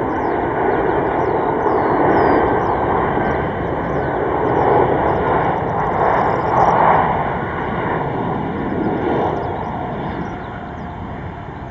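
Jet noise from a Boeing 747-400 freighter's four turbofan engines as it flies low past on final approach with its landing gear down. A dense, steady rushing roar builds to its loudest about seven seconds in, then fades as the aircraft moves away.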